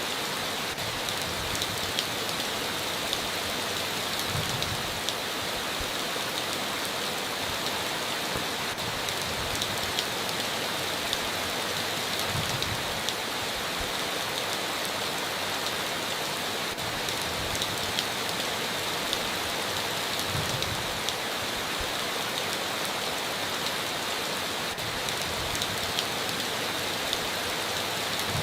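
Heavy rain falling steadily on a tin roof, with many sharp individual drop ticks over a constant hiss.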